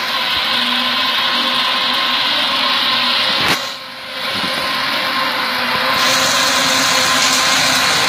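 Treadmill motor and belt running, a steady whir with a fixed hum, as toy cars ride on the moving belt. A sharp click comes about halfway through, the sound briefly drops, then comes back at full strength.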